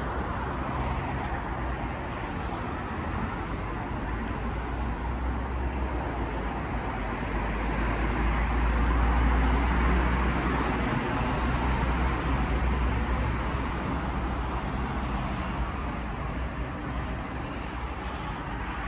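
Steady road traffic noise with a low rumble, swelling around the middle as a vehicle passes and then easing off.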